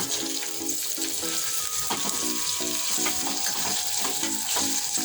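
Chicken and vegetables sizzling in a cooking pot, stirred with a spatula that scrapes and knocks against the pot now and then.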